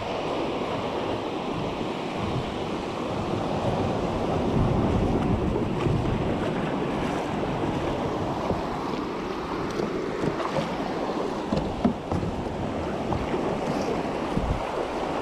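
Shallow surf washing and breaking on a sandy beach, a steady rushing hiss, with wind gusting on the microphone.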